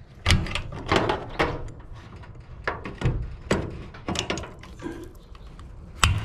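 Irregular metallic knocks and clunks as locking pliers (vise grips) are worked and clamped onto a garage door's steel track. The sharpest knock comes near the end.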